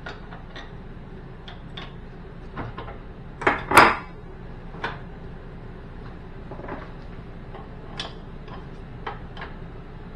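Wrenches clinking and clanking on a gas-line fitting and the stove's sheet-metal burner tray as the line is loosened, in scattered short metallic clicks, with a louder double clank about three and a half seconds in.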